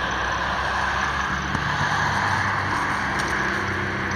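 A car passing on a road, its tyre and engine noise swelling to a peak midway and easing off again.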